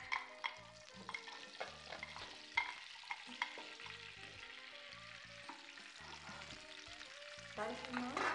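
Food sizzling as it fries in a pan on a gas stove, stirred with a wooden spoon, with scattered clicks of utensils and a metal pot lid.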